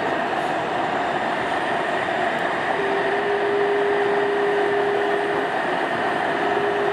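A radio-controlled model military vehicle running with a steady mechanical noise. A steady whine at one pitch joins it about three seconds in.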